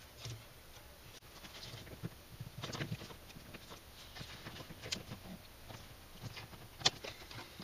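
Plastic tail-light housing of a Fiat Palio being worked by hand inside its body opening: faint rubbing and scraping with a few small plastic knocks and clicks, the sharpest near the end.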